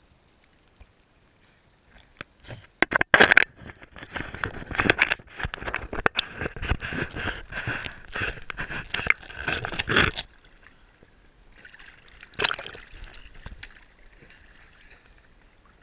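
Seawater sloshing and splashing around a camera riding at the waterline as swimmers move through the water, with gurgling as the camera dips. The splashing is loudest from about 3 to 10 seconds in, then dies down, with one sharp splash a couple of seconds later.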